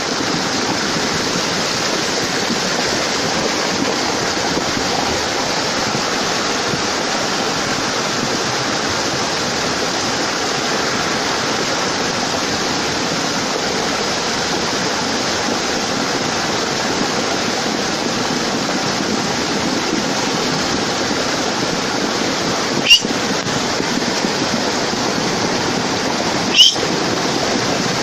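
Steady loud rush of storm water from heavy tropical-storm rain. Near the end come two sharp knocks a few seconds apart.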